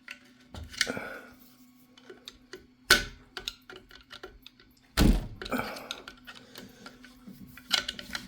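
3D-printed plastic supports being knocked and snapped out of a printed dragon planter: scattered plastic clicks and knocks, with two sharp loud knocks about three and five seconds in and a quick cluster of clicks near the end.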